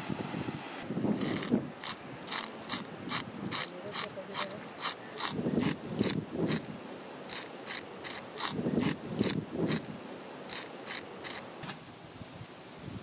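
Metal fish scaler scraping the scales off a large whole fish on a wooden board, in quick repeated rasping strokes about two a second, with short pauses. The scraping stops shortly before the end.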